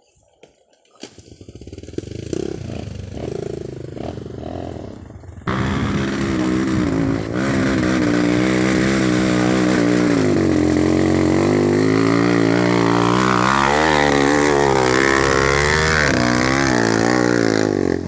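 Off-road motorcycle engine revving, at first fainter and then suddenly much louder about five and a half seconds in. Its pitch rises and falls repeatedly as it is worked hard on a muddy uphill trail.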